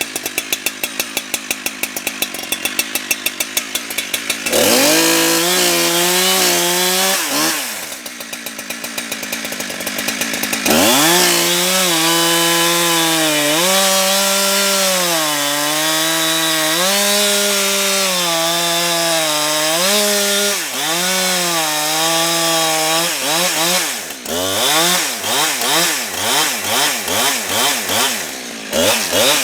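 Husqvarna 365 two-stroke chainsaw run at full throttle through logs, its engine note dipping and recovering as the chain bites under load, in two long cuts separated by a spell at low revs. Near the end the throttle is blipped repeatedly.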